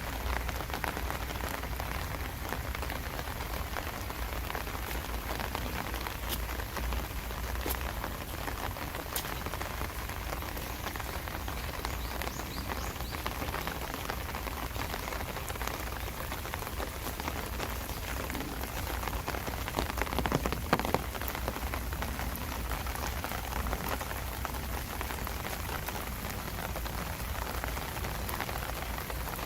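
Steady summer rain falling, a dense even hiss of drops with a steady low rumble underneath. A brief cluster of louder drop hits comes about twenty seconds in.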